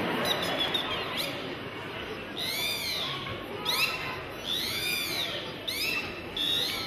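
A whistle gliding up and then down in pitch, five times in a row, each rise and fall lasting under a second, over the low murmur of an audience.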